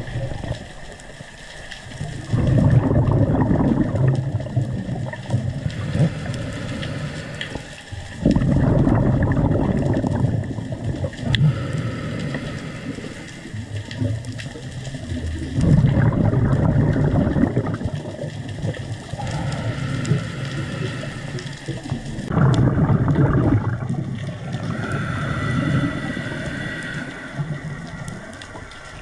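Underwater bubbling rush in four long surges about six to seven seconds apart, each fading away: a diver's exhaled breath bubbling out past the camera.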